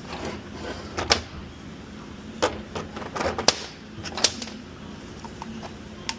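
Hand tools and metal parts knocking and clanking in a car's engine bay during alternator work: a handful of sharp, separate clanks spread over several seconds, over a steady low hum.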